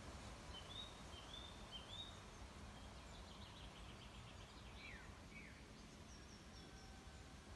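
Faint outdoor background with distant birds chirping: three short rising chirps in the first two seconds, then a quick run of falling notes about halfway through, over a steady low hum.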